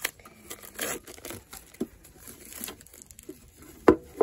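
Clear plastic shrink wrap crinkling and tearing as it is pulled off a collector's tin, in scattered crackles, with two sharp clicks near the end.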